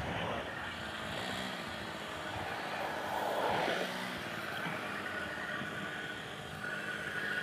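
Motor vehicle engines running steadily, swelling about three seconds in and fading again.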